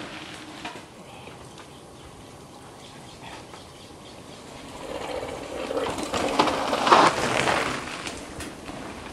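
Mountain bike coming down a rocky dirt trail and passing close by: tyres crunching over dirt and rock with scattered clicks and knocks. It builds up from about halfway through, is loudest a little before the end, then fades.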